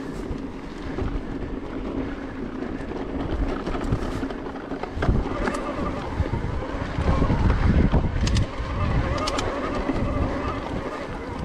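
Electric mountain bike riding a dirt singletrack: a steady whine from its mid-drive motor over a low rumble of wind on the microphone, with the rattle of the bike and a few sharp clicks or knocks from the trail.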